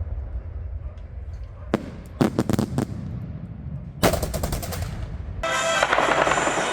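Fireworks salute: two quick volleys of sharp crackling reports over a low rumble, then music comes in near the end.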